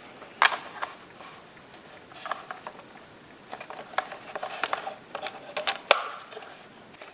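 Handling noise of a small handheld electronic ghost-hunting device being turned on: scattered sharp clicks with light rustling and clattering, the loudest clicks about half a second in and near six seconds.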